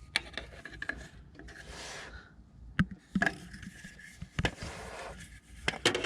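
Handling noise from a hand-held camera being moved about: rubbing and scraping with a few sharp clicks and knocks.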